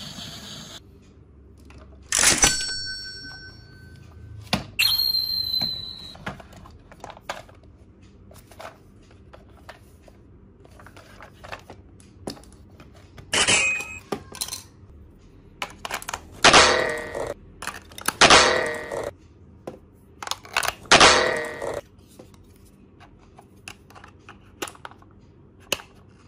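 Hard plastic toys being handled: scattered clicks and knocks, with a sharp ringing clink about two seconds in and a higher ringing one near five seconds. Three louder rattling scrapes of plastic come between about sixteen and twenty-two seconds as a wheeled toy is turned over and worked at in the hands.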